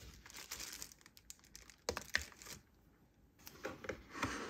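Quiet unboxing handling noise: the plastic bag around a power adapter crinkles and clicks as it is handled, with a couple of sharp ticks about two seconds in. Near the end, a rustling scrape as a molded pulp packaging insert is gripped and starts to slide against the cardboard box.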